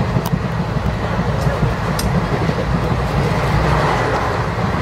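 Running noise inside a moving train carriage: a steady low rumble with a few faint clicks.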